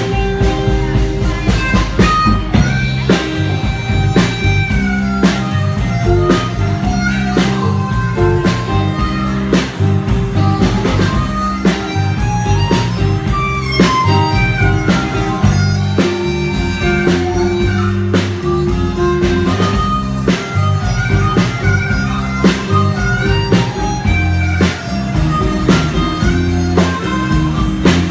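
Live blues band, with an amplified blues harmonica, cupped against a microphone, playing the lead over electric guitar, bass and drums.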